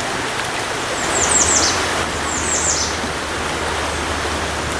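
Steady rush of fast-flowing river water. A small bird calls twice over it, each time a quick run of high notes sweeping downward, about a second in and again near two and a half seconds.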